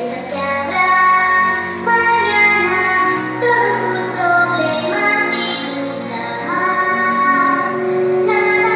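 Music with a high voice singing long held notes.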